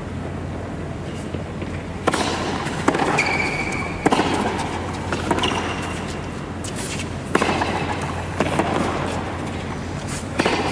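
Tennis rally: sharp racket-on-ball hits starting about two seconds in and recurring roughly once a second, over steady crowd noise in the stands.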